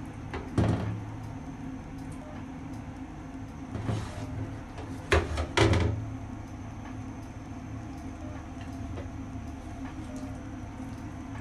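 Portions of bread-cutlet mixture being set into a frying pan of hot oil: a few short knocks and thumps, the loudest two close together about five to six seconds in, over a steady low hum.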